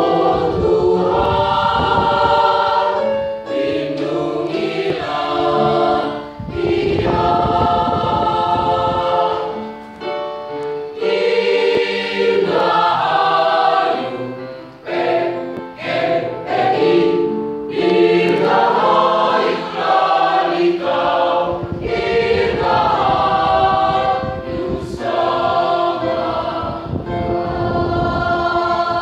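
Mixed choir of men and women singing together, phrase after phrase with short breaks between.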